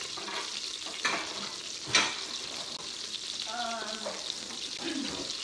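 Butter sizzling as it melts in an Instant Pot's stainless steel inner pot: a steady crackling hiss. Two sharp knocks cut in, about one and two seconds in, the second the loudest.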